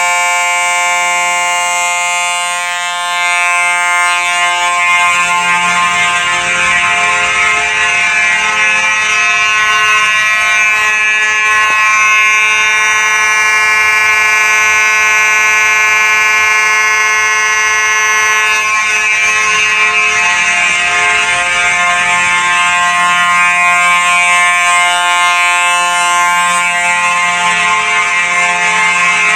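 Simplex 4903-9219 electromechanical fire alarm horn sounding continuously. It is a D-series mechanism whose circuit board pulses a vibrating metal plate slowly to give a low note.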